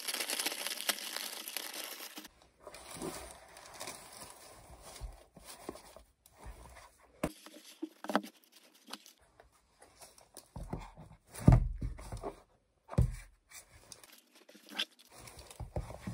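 White paper wrapping rustling and crinkling as a package is unwrapped by hand: dense crinkling for the first two seconds, then scattered softer rustles. A few low thumps come around the middle, the loudest about eleven and a half seconds in.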